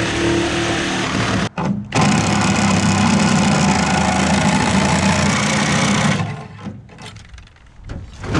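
A machine's motor running steadily under load, broken briefly about a second and a half in, then dropping away about six seconds in to quieter scattered knocks and clatter.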